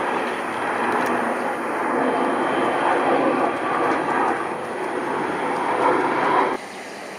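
Embraer 175 jet airliner on approach to land in strong wind: a loud, steady rushing roar that drops off abruptly near the end.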